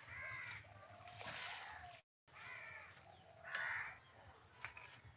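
Crows cawing several times, short harsh calls a second or so apart, over the faint splash of hot milk poured from a ladle back into a steel bowl.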